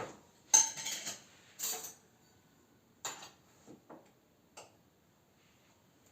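Clinks and knocks of kitchen dishes and utensils being handled: a cluster of sharp clatters in the first two seconds, another about three seconds in, then a few lighter taps.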